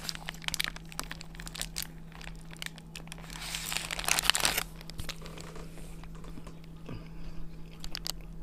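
Paper wrapper of a shawarma crinkling and rustling as the wrap is handled, loudest in a burst of about a second and a half near the middle, with small clicks and soft chewing sounds through the rest.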